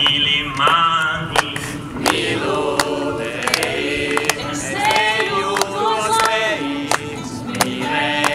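A group of voices singing a song together, with sharp hand claps through it.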